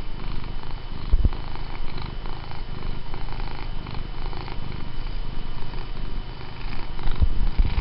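Domestic cat purring steadily close up while being petted, a low, pulsing rumble. Two brief low thumps break in, about a second in and near the end.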